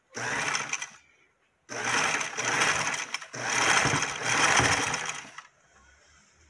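Electric sewing machine driven by a foot-pedal motor, stitching in three bursts: a short run of about a second, then two longer runs of about two seconds each with a brief stop between them, falling silent about five and a half seconds in.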